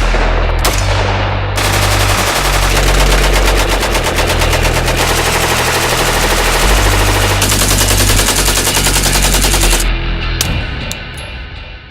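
Suppressed AK-105 rifle (5.45×39mm) with an AAC SDN6 suppressor firing: separate shots at first, then rapid strings of fire from about a second and a half in, with background music underneath. Both fade out near the end.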